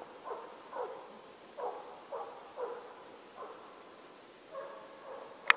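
Estonian hound baying on a hare's trail: a run of separate short yelps, about one or two a second, with a longer call near the end. This is the hound giving voice on the chase, the sign that it is driving the hare. A sharp click comes just before the end.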